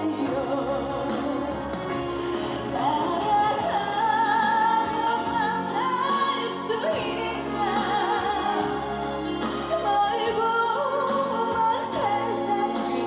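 Live trot song: a woman sings the end of a line over the backing band's accompaniment, and a wavering melody carries on with vibrato over steady backing.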